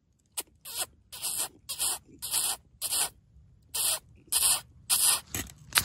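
Predator call sounding a raspy animal distress cry in rhythmic bursts, about two a second, with a short pause a little past the middle.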